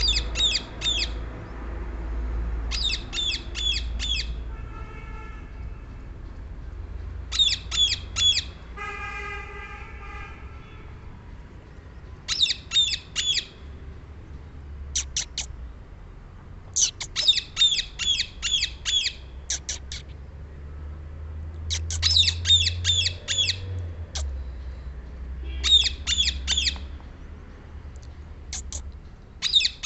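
Rose-ringed parakeet squawking: shrill, rapid runs of four to six notes, repeated every few seconds, over a low steady rumble. Twice, at about five and nine seconds in, a lower sound with a steady pitch comes in briefly.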